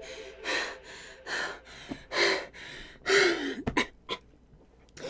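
A person panting heavily into a close microphone, out of breath after strenuous dancing: quick, audible gasping breaths in and out, one exhale voiced with a falling pitch about three seconds in, then a brief pause near the end.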